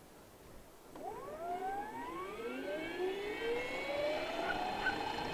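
Scale RC Chinook tandem-rotor helicopter spooling up for start: about a second in, a whine with several overtones begins and climbs in pitch, easing off into a steadier tone as the two rotors begin to turn.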